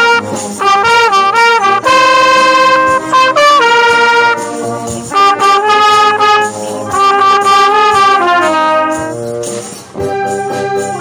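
Trumpet played close to the microphone: long held notes alternating with quick runs of notes, stopping a little before the end, after which a softer sustained instrument carries on.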